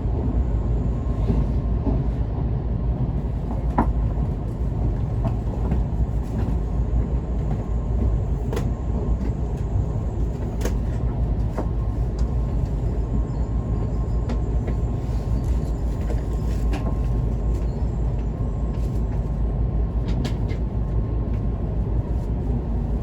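Tokaido Shinkansen train running, heard from inside the passenger cabin: a steady low rumble of wheels and running gear with a few scattered sharp clicks, as the train approaches its stop at Shinagawa.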